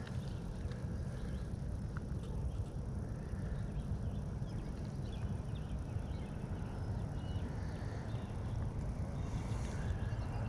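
Steady outdoor rumble of wind on the microphone, with a few faint, short high chirps.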